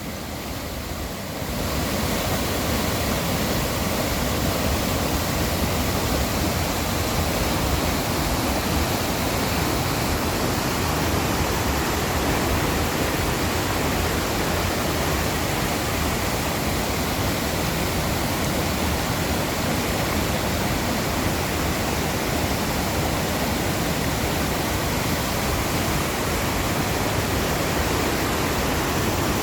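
Mountain valley stream running high after rain, its water rushing in a steady, even wash of noise that grows louder over the first second or two.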